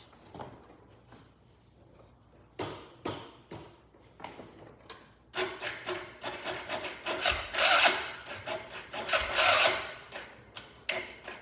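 A few light knocks, then about five seconds in an ATV's electric starter cranks the engine in long rhythmic bursts. The engine tries to catch but does not start.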